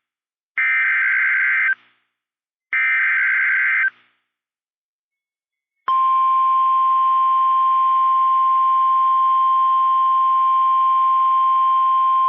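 NOAA Weather Radio emergency alert: two one-second bursts of SAME digital header data, a second apart, then about two seconds of silence. About six seconds in, the steady 1050 Hz warning alarm tone begins, signalling a warning broadcast (here a severe thunderstorm warning).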